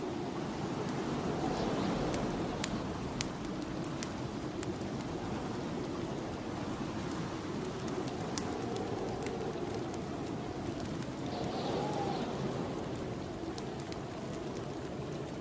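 Snowstorm wind blowing steadily, with a low howl that slowly rises and falls, over the frequent small pops and crackles of a wood fire.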